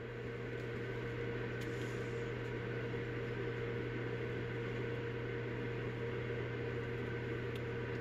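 Steady low electrical or mechanical hum under a hiss, with a fainter higher tone riding on it. Two faint ticks sound, one about a second and a half in and one near the end.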